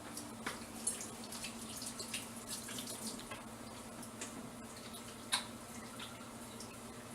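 Tap running into a sink while hands are washed under it, with small irregular splashes and drips.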